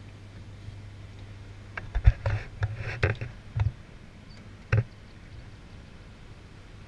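Irregular sharp knocks and clunks, a cluster between about two and four seconds in with the loudest near two seconds, and one more near five seconds, over a steady low hum.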